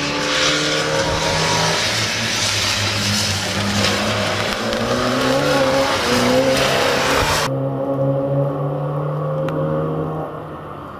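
Fiat Punto rally car's engine revving hard and changing pitch through the gears as it drives a wet tarmac course, passing close with a loud hiss over the engine. About seven and a half seconds in, the hiss cuts off suddenly and a quieter, more distant engine note carries on.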